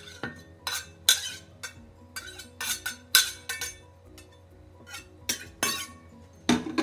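Chopped garlic scraped and tapped off a cutting board into a glass jar of water: a run of sharp clicks and clinks, loudest at the start and near the end, over quiet background music.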